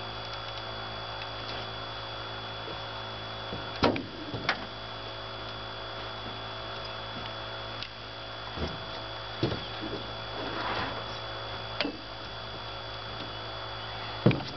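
Several sharp knocks and thumps on an aluminium boat deck, the loudest about four seconds in and another near the end, over a steady electrical hum.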